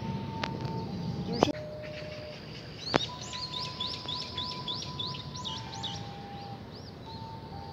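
Songbird singing: a quick run of about ten chirps, about three a second, some three seconds in, with single chirps before and after. Steady held tones sound in the background, and a sharp click comes about three seconds in.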